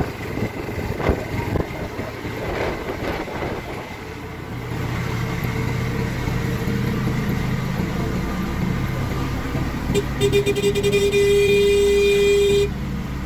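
Auto-rickshaw engine running as it drives along the road, with its engine note growing steadier a few seconds in. Near the end a horn gives a short toot and then a long blast of about two and a half seconds.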